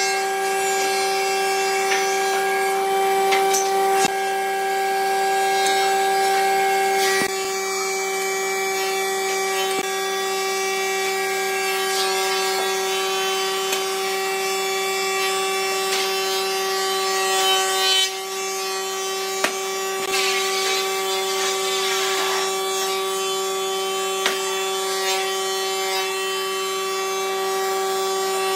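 A machine's electric motor humming steadily at one unchanging pitch, with a few short knocks of wooden pieces being set down on a board.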